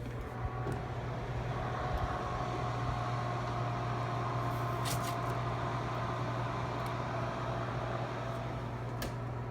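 Steady low hum of a running electric oven with its door open, with a faint steady whine above it and a few faint light clicks as a foil-wrapped banana is set on the rack.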